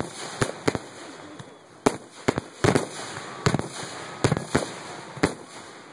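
Aerial fireworks going off in a rapid, uneven string of sharp bangs, about a dozen in all, roughly two a second.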